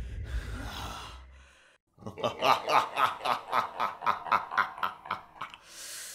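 A man laughing in an even run of short, pitched chuckles, about four a second, for some three seconds. Before it a low rumble fades out to a brief silence.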